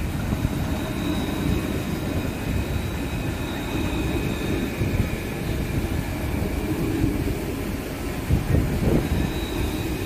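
Alstom Citadis low-floor electric tram passing slowly at close range: a steady low rumble of steel wheels on embedded street rails, with a faint high whine from its drive.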